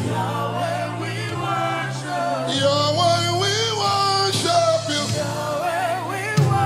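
Live gospel worship music: long, wavering vocal runs with no clear words over a band's sustained low chords.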